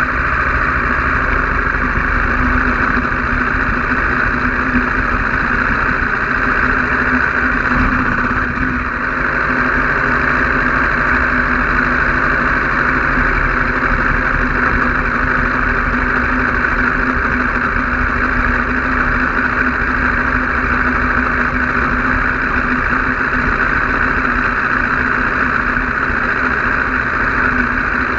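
Aprilia RSV4's V4 engine running at a steady, even pace as the motorcycle rolls along, with no revving.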